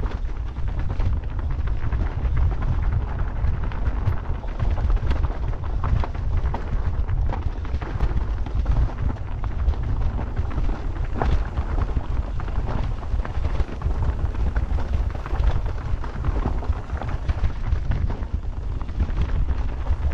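Wind buffeting the camera's microphone in a steady heavy rumble, with an electric mountain bike rattling and clattering over rocks throughout.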